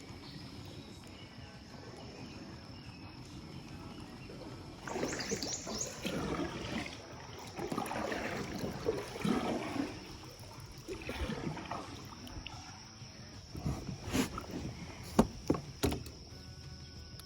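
Water splashing and sloshing around a kayak in a creek, in irregular spells, then a few sharp knocks near the end.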